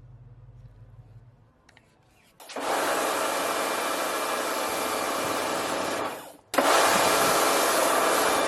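Karcher K3 electric pressure washer running and spraying a high-pressure water jet through its handheld gun. It starts about two and a half seconds in, dies away briefly as the trigger is let go, then starts again abruptly with the trigger pulled.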